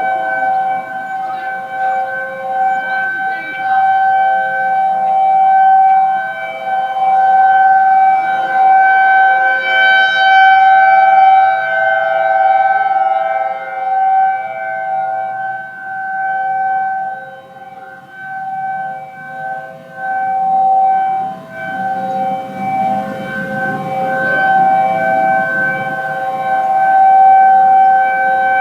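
Three outdoor warning sirens (a Federal Signal Thunderbolt 1003A, a Federal Signal 2001 and an ACA Screamer) sounding a steady alert tone together, several held pitches overlapping, the loudness swelling and dipping every few seconds as the sirens rotate. The ACA Screamer sounds single-toned, which the recordist takes for a blocked 12-port side.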